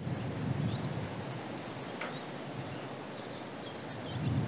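Steady wind noise and rustling outdoors, with a short high bird chirp about a second in.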